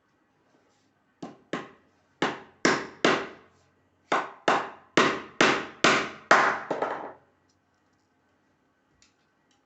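Hammer blows on wood: about eleven sharp strikes in three quick runs of two, three and six, each ringing out briefly.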